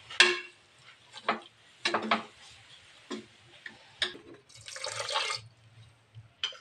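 Steel ladle stirring wet leaves and water in a pressure cooker: scattered knocks and clinks against the pot, with a longer wet swish about five seconds in.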